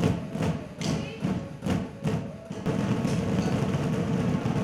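A group drumming class striking drumsticks on exercise balls in time with playback music: strikes land about every 0.4 s, then turn into a denser, continuous wash of drumming a little over halfway through.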